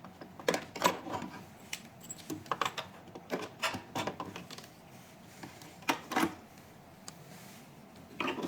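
Irregular clicks and light clatter of hard plastic pad connectors and cables being handled and plugged into the cavitation machine's connection ports.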